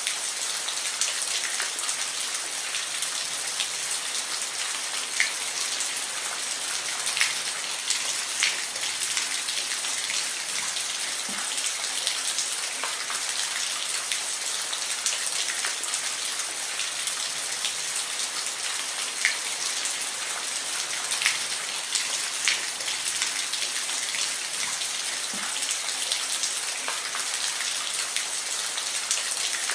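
Steady rain falling, a dense even hiss with scattered louder individual drops ticking on a hard surface.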